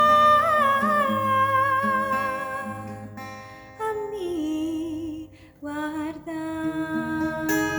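Music: acoustic guitar chords under a wordless held vocal line with vibrato, the closing bars of a slow worship song.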